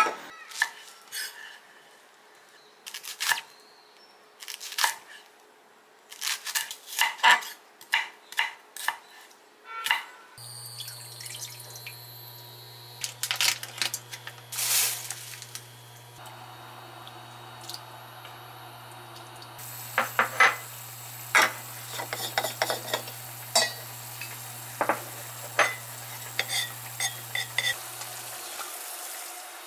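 Kitchen clatter: sharp, irregular knocks and clinks of utensils and dishes for the first ten seconds. Then a frying pan on a glass-top electric hob holds duck slices boiling in water, bubbling under a steady low hum from the hob, with more clinks; the hum stops near the end.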